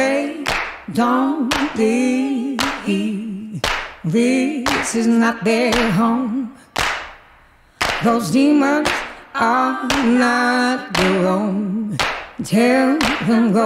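Background song: a single singing voice with almost no instruments, over hand claps keeping a beat of about one a second. The song breaks off briefly just before the middle.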